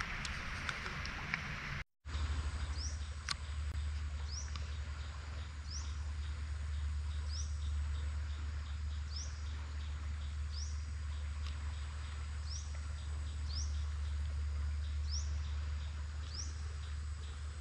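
A hiss of rain for about two seconds, then, after a brief break, a bird repeating a short rising chirp roughly once a second over a steady low rumble.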